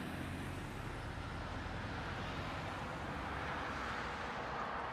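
Steady engine hum and tyre-on-road noise of a car driving in traffic, heard from inside the cabin through a dashboard camera's microphone.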